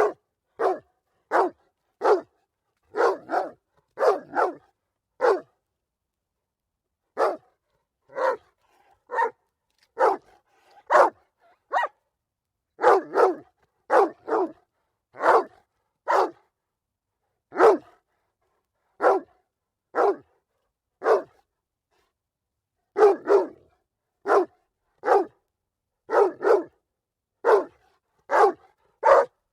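A single dog barking repeatedly, in short separate barks, sometimes two or three in quick succession, with brief pauses of a second or two.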